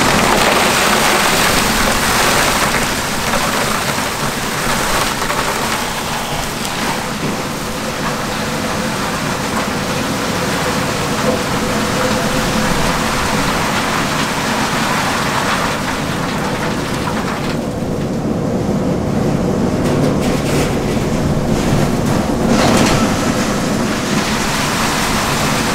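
Crushed ice pouring out of an overhead metal ice chute into plastic bins and a boat's hold: a dense, steady rattling hiss, with a low machine hum underneath. The flow eases for a few seconds about two-thirds through, then picks up again.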